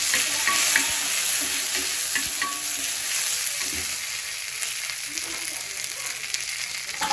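Tempering of curry leaves, mustard seeds and urad dal sizzling in hot fat on a cast-iron tawa, with a steel spatula scraping and stirring them. A few small crackles sound over a steady sizzle, which eases slightly toward the end.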